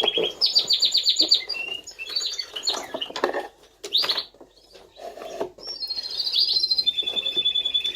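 Norwich canaries singing: rapid trills of fast repeated high notes, one rolling on after another, with a few short knocks in the middle.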